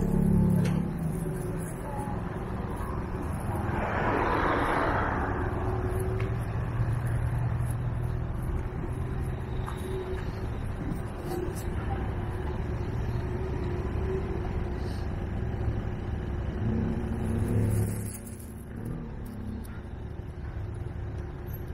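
Street traffic ambience: a steady low rumble of passing cars, with a short burst of noise about four seconds in and a quieter stretch near the end.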